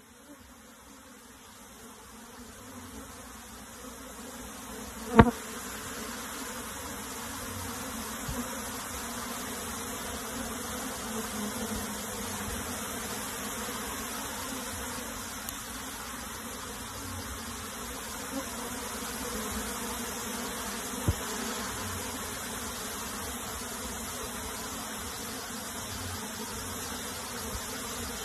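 A mass of honey bees buzzing in a steady hum that builds over the first few seconds and then holds. A sharp knock cuts through about five seconds in, and a smaller one about twenty-one seconds in.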